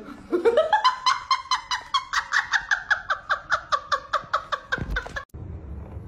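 Shrill, cackling laughter from a woman: a rising squeal, then a fast run of short 'ha' pulses, about five a second, that cuts off suddenly near the end.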